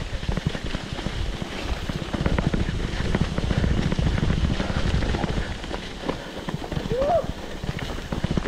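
Mountain bike jolting over a rough, rocky trail: a dense, rapid, irregular rattling and knocking from the bike. A brief voice cry rises and falls about seven seconds in.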